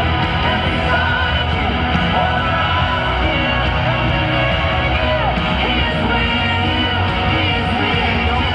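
Live worship band playing through outdoor PA speakers, with a voice singing over the music.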